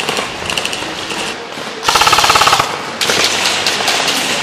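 An airsoft rifle fires a rapid full-auto burst just under a second long, about two seconds in. More scattered shots follow in the second half.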